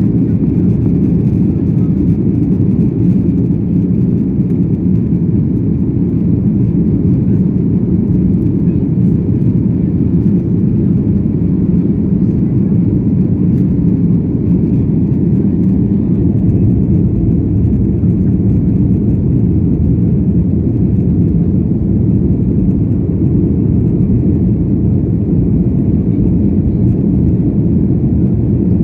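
Steady, loud rumble of engine and airflow noise inside the cabin of a Boeing 737-800, even in level throughout.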